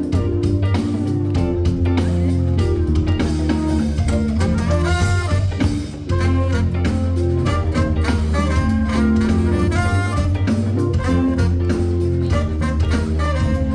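Live band playing a jazz-funk number: a steady bass line and drum beat with guitar, and a melody line over them.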